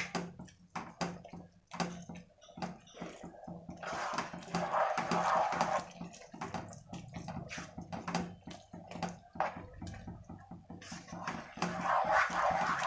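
A spatula stirring semiya upma (vermicelli and vegetables in a watery broth) in a pot: wet sloshing and squelching with many light clicks and knocks of the spatula against the pot, louder in spells about four seconds in and near the end.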